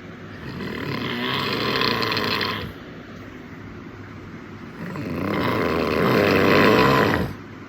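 A man snoring in his sleep: two long snores, each lasting about two and a half seconds, with a quieter pause between them; the second is louder.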